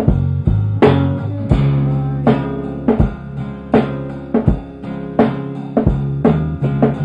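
Instrumental passage of a song: plucked guitar over a sustained bass line, with a steady drum beat striking about every three-quarters of a second.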